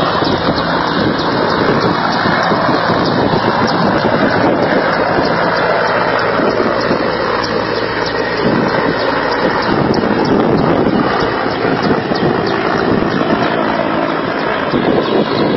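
Helicopter flying low overhead, its rotor and engine noise loud and steady.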